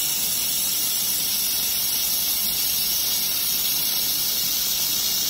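1.5 kW handheld fiber laser welder with automatic wire feed, butt-welding 3 mm aluminium plate: a steady high-pitched hiss.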